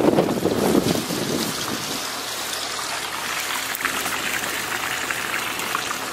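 Storm wind buffeting the microphone for about the first second, then a steady hiss of water.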